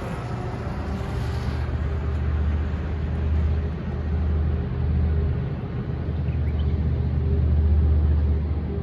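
Low, steady rumble of a tank's engine running, swelling and easing in loudness, with its deep hum the loudest thing throughout.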